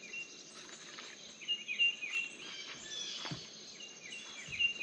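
A bird chirping in two short runs of quick notes over a steady high insect drone, with a soft knock about three seconds in.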